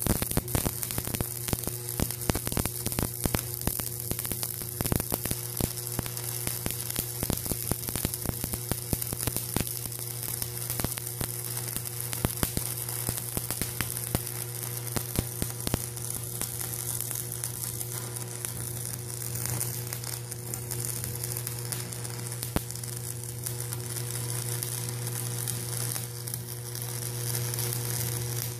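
Stick-welding arc from a Montgomery Ward Powercraft welder burning a 7014 rod: a continuous crackling sizzle over a steady hum. The crackle is densest in the first half and smooths out later in the bead.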